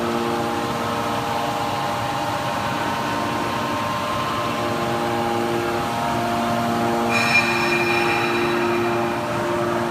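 Automatic hydraulic metal baler for aluminium cans running: a steady machine hum carrying several steady tones. About seven seconds in, a higher-pitched whine joins for about two seconds, with a brief louder peak at its start.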